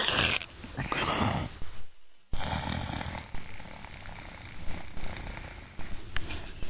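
A person snoring in rough, rasping breaths, then a sudden break and a steady background hiss.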